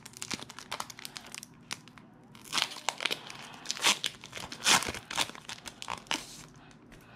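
Foil wrapper of a Pokémon card booster pack crinkling and tearing as it is opened by hand, a run of sharp crackles that grows louder and denser about halfway through.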